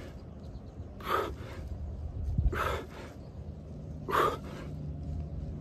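A man breathing hard through push-ups: a forceful exhale with each rep, three of them about a second and a half apart.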